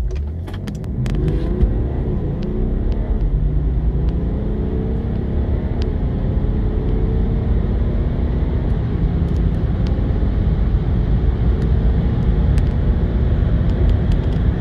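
BMW diesel car accelerating hard from a standstill. The engine note rises through the gears, then gives way to a steady low rumble of engine, tyres and wind at high speed.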